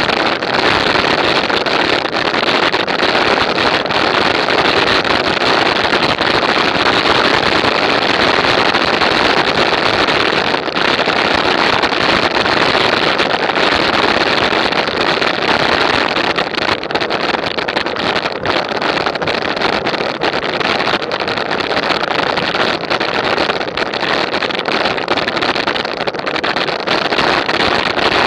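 Steady rush of wind over an action camera's microphone while riding, an even roar with no engine note or voices.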